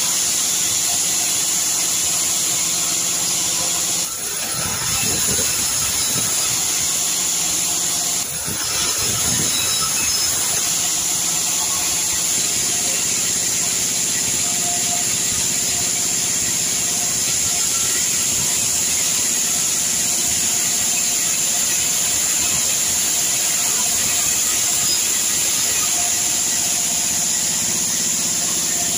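Sawmill band saw running and cutting red sengon wood: a steady loud hiss and whine of the blade through the timber, with two brief dips in level about four and eight seconds in.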